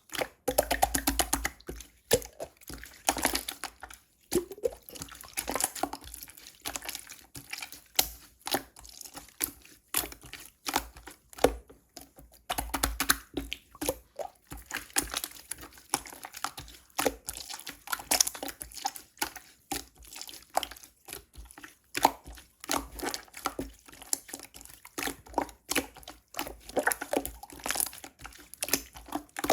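Slime being squished, pressed and stretched by hand, making dense, irregular wet clicks, pops and crackles.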